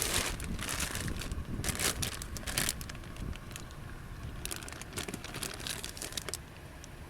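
Irregular crinkling and rustling handling noises, dense in the first three seconds and then sparser, over a steady low background rumble.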